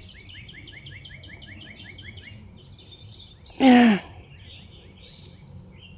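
Songbird chirping: a rapid run of short, falling chirps, about five a second, for the first two seconds, then scattered chirps. About three and a half seconds in, one short, loud vocal sound falls in pitch.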